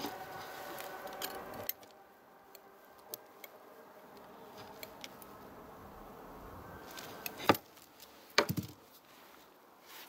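A knife blade tapping and clicking against the metal lid of a glass jar of tomato paste as the lid is pried to break its vacuum seal: a few sharp metallic clicks, the loudest a little after seven seconds and a quick cluster around eight and a half seconds. A faint steady hum runs through the first second and a half.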